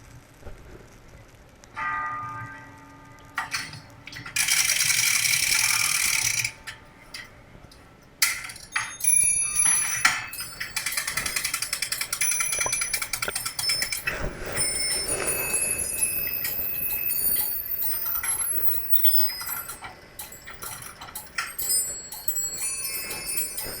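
Metal chimes and small bells ringing. A few single strikes come early, then a hiss lasting about two seconds, and from about eight seconds in many high, overlapping chime tones jingle together.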